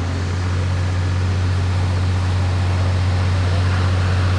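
Engine of an RC BD-5J model jet running in flight: a steady, even rush over a strong low hum.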